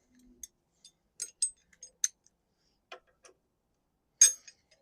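Irregular sharp metal clicks and clinks from hand tools working at the tight Allen axle-clamp bolts on a motorcycle's front fork, with one louder click near the end.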